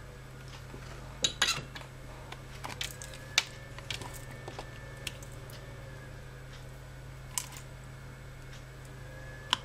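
Scattered light clicks and clatter of handling on a workbench as a component tester is set down and its clip leads are fitted onto a capacitor. A steady low hum runs underneath.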